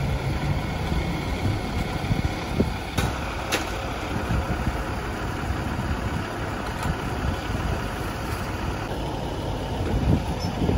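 Fire engine idling steadily, with a few sharp knocks about three seconds in.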